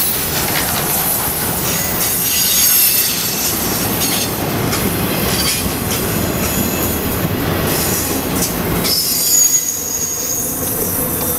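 Trailer-on-flatcar intermodal freight cars rolling past on a downgrade, with a high wheel squeal and clacking over the rails. The last car goes by about nine seconds in; the low rumble drops away and a fainter squeal lingers.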